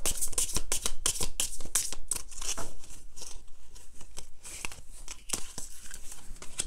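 Tarot cards being shuffled and handled: quick papery flicks and rustles, dense at first and thinning out after about three seconds.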